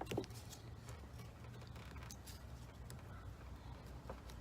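A few faint, short plastic clicks, spread out, from the buttons of a Ford door-mounted keyless-entry keypad being pushed, over a low steady hum.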